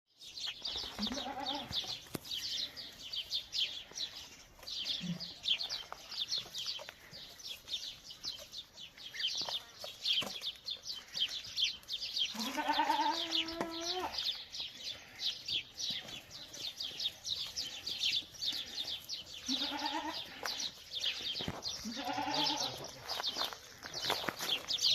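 Boer goats bleating: a short bleat about a second in, one long bleat around the middle, and two more near the end. Constant high-pitched chirping runs underneath.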